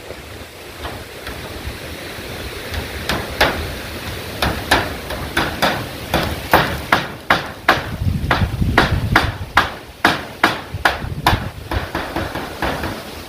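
Hammer driving nails into corrugated zinc roofing sheets, a run of sharp blows at about two a second, starting a few seconds in and stopping near the end, with wind rumbling on the microphone underneath.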